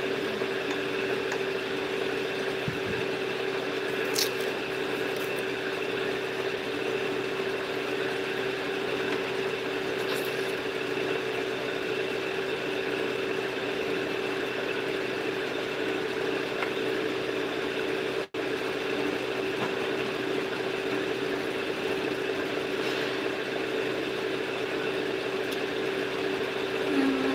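A steady motor hum holding one constant pitch, with faint fainter tones above it. The sound cuts out for an instant about eighteen seconds in.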